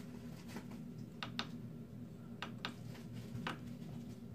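Small plastic buttons on a voltage relay being pressed, about five short clicks in loose pairs, over a faint steady hum.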